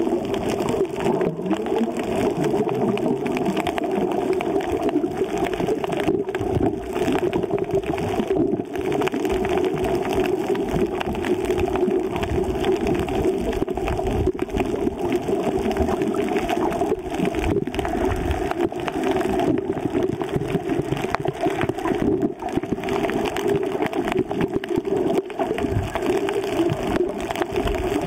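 Underwater sound picked up by an action camera in its waterproof housing while swimming over a coral reef: a steady, muffled water rush with dense faint crackling throughout.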